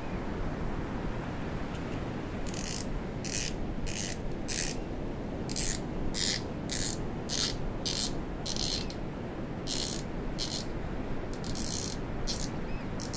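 Spinning reel spool clicking in short ratcheting runs as it is turned by hand, about fifteen bursts starting a couple of seconds in, over a steady low hiss.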